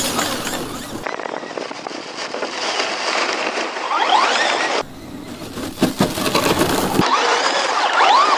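Electric motor of a Traxxas radio-controlled rally car whining as it revs up and down, over the noise of its tyres running through grass. The sound changes abruptly several times.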